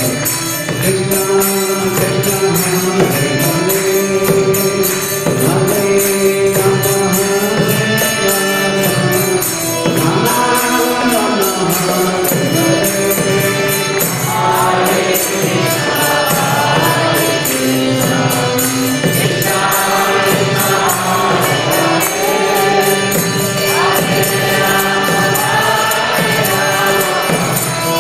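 A group chanting a devotional mantra to harmonium, barrel drum and small hand cymbals, the cymbals clicking in a steady beat.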